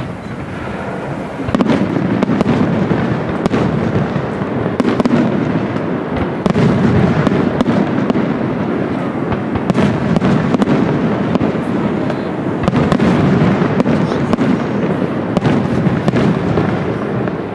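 Aerial fireworks display: shells bursting overhead in quick succession, a dense barrage of many sharp bangs that builds up about a second and a half in and keeps going.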